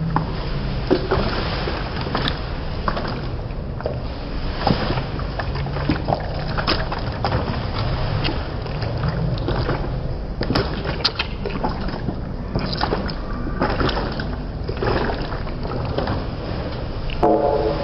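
Water sloshing and splashing, with irregular sharp splashes every second or so over a steady low rumble.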